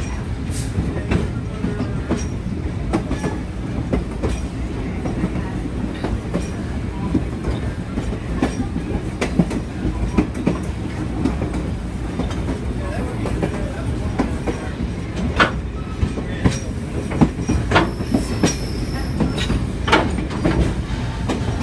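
Railroad car rolling along the track, heard from its open end platform: a steady low rumble with clicks and knocks from the wheels. The knocks come more often and sharper in the last several seconds.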